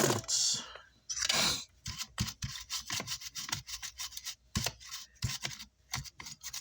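A hand tool scraping and rubbing on a circuit board: two longer strokes, then a quick run of short scratching strokes, about three or four a second.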